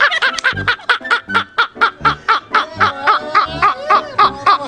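A man laughing hard and without a break, in rapid high-pitched bursts of about six a second.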